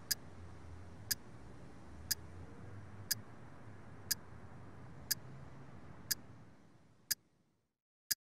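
A clock ticking once a second, sharp and even, over a faint low room hum that fades away about seven seconds in, leaving only the ticks.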